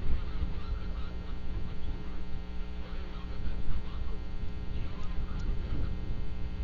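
A steady electrical hum with many overtones. Faint, short, chirp-like calls are scattered over it.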